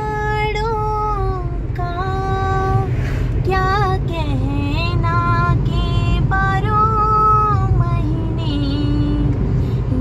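A song with a high singing voice carrying a slow melody of long held notes that slide between pitches, over a steady low rumble of car road noise.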